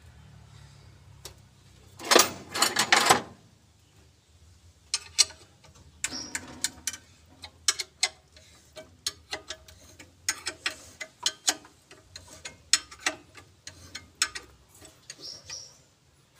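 Irregular sharp metallic clicks and taps of a hand wrench working the bolts at the radiator fan shroud, with a louder clatter of metal about two seconds in.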